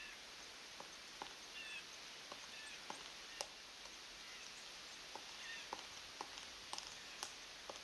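Pileated woodpecker chiselling into a tree trunk while feeding: a dozen or so short, faint knocks at an uneven pace over a steady hiss.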